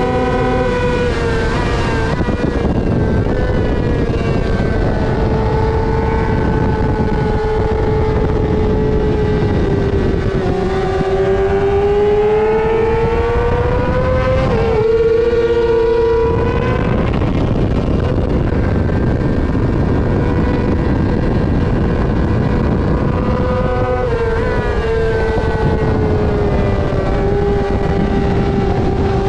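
2020 Yamaha R6 inline-four engine at racing speed, heard onboard with heavy wind rush. The engine pitch steps down through quick downshifts under braking near the start, climbs steadily through the middle, and steps down again with more downshifts a few seconds before the end.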